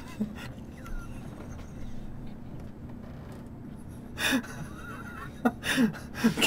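Breathy, held-in laughter from two women. It is hushed for the first few seconds, then comes in several short bursts from about four seconds in.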